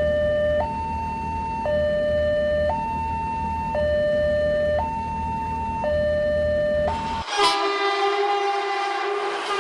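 Cartoon train sound effects: an electronic two-tone warning sound alternates low and high about once a second over the low rumble of a running train. About seven seconds in, the rumble cuts off and, after a short swish, a horn blares, its pitch sagging slightly.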